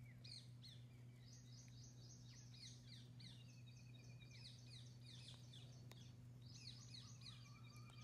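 Faint birdsong: quick runs of short descending chirps and a thin, steady trill, over a low steady hum.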